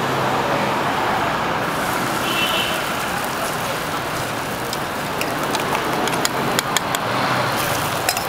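Steady roadside traffic noise, with a few sharp clicks in the second half.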